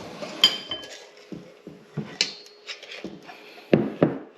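Mixing bowls and utensils being set down and handled on a kitchen counter: scattered knocks and clinks, a ringing clink about half a second in and two louder knocks near the end.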